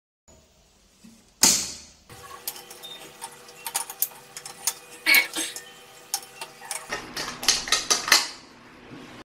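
One loud sharp snap, then a run of light metallic clicks and taps as an adjustable wrench and the brass and chrome fittings of a wall-mounted faucet are worked and handled. The clicks are densest near the end, and a faint steady hum sits under the middle part.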